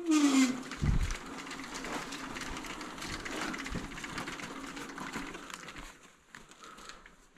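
A creak falling in pitch and a heavy thump about a second in, then the steady rolling and rattling of a dirt bike being pushed on its knobby tyres across concrete. The rolling fades out after about five seconds.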